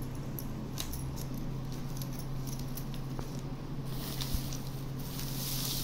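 Glass bangles clicking and clinking lightly against each other as a stack is handled. From past the middle comes the crinkling rustle of the newspaper wrapping they lie in.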